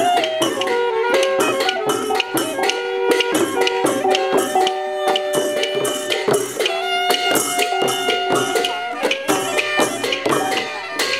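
Upbeat music with a melody over a quick, steady percussion beat.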